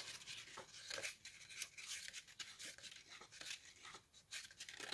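Faint rustling of paper as sheets of a small scrapbook paper pad are turned over and handled, with many soft irregular flicks.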